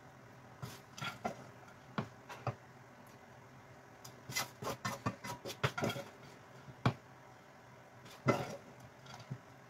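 Black plastic spatula knocking and scraping in a coated frying pan and against a ceramic serving dish as fried anchovies are served out: a string of separate clicks, with a quick busy run of them in the middle.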